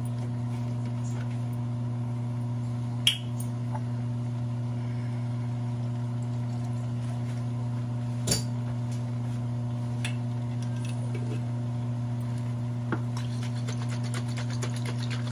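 A running kitchen appliance hums steadily, while kitchenware knocks sharply twice, about three seconds in and again about eight seconds in. A quick rattle of small ticks follows near the end.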